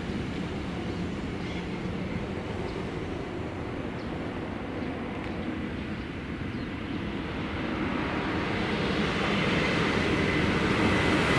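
Electric trains running on the tracks: a steady low rumble that grows louder over the second half as a train comes closer.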